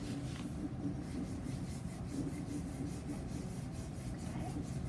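Wax crayon, partly peeled and laid on its side, rubbed in repeated strokes over paper taped to a whiteboard, colouring in a red stripe.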